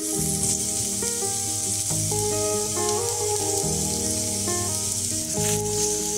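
Sliced red onion sizzling as it drops into hot vegetable oil in a frying pan, a steady frying hiss that starts as the onion lands. Background music plays underneath.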